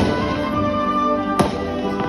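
Music with long held notes, and a single firework bang about one and a half seconds in.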